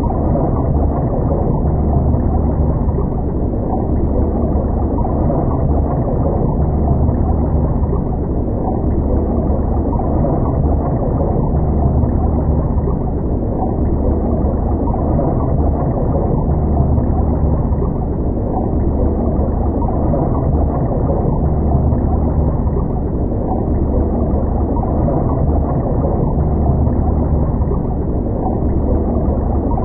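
Underwater ambience: a steady, muffled rumble of water, deep and dull with almost nothing in the high range.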